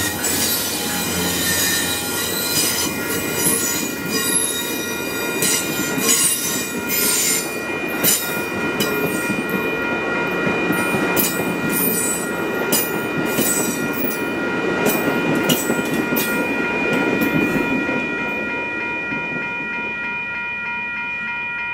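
Amtrak passenger train's wheels squealing in steady high tones as the train rounds a curve, over the rumble and clicking of its wheels on the rails. The rumble and clicks die away in the last few seconds while the squeal holds on.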